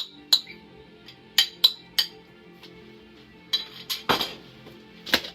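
Sharp clinks of a metal utensil against a serving dish, about nine scattered taps while toppings are spooned onto the plate, over steady background music.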